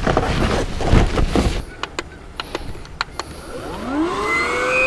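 Clattering handling noise and a few sharp clicks. Then a small electric motor starts up near the end, its whine rising quickly in pitch and settling into a steady hum.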